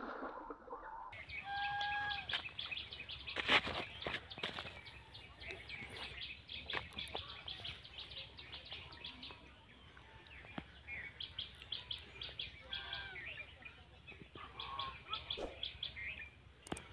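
Small birds chirping and twittering in quick runs of short high notes, with a few sharp clicks about three and a half seconds in.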